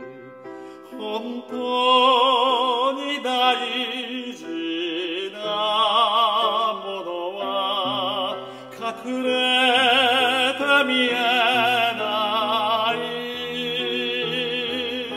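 A male opera singer singing a slow song in a full operatic voice, with wide vibrato on held notes, over sustained instrumental accompaniment. Three sung phrases, each separated by a short breath.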